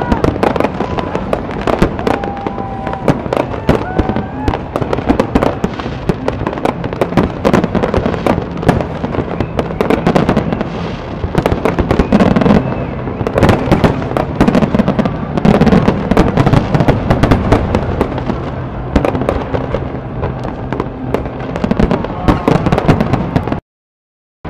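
Aerial fireworks display: a dense, continuous barrage of shell bursts, bangs and crackling, with a few thin whistling tones in the first few seconds. The sound cuts out abruptly to silence about a second before the end.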